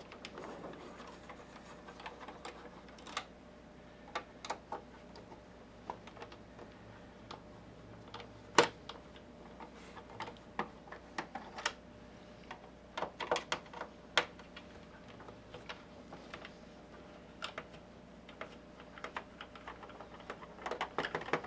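Irregular clicks and small taps of a long-shaft Phillips screwdriver turning out screws and knocking against a first-generation PlayStation 3's plastic case, with one sharper click about halfway through.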